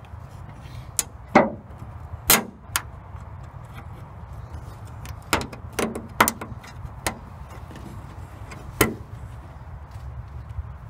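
Scattered sharp clicks and taps of a metal hook pick working fasteners loose on the underside of a Toyota Camry's hood, about ten in all, in two loose clusters.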